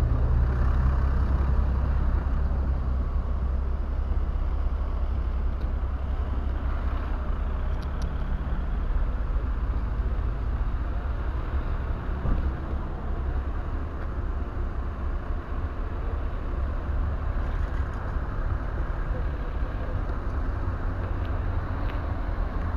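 Steady low rumble of an idling truck diesel engine, with a few faint clicks over it.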